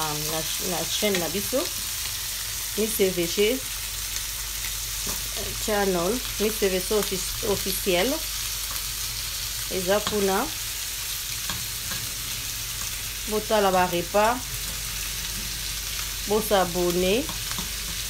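Shrimp sizzling in a non-stick frying pan as they are turned with a fork. Over the steady sizzle come repeated short squeaky tones that dip and then rise in pitch, in small groups.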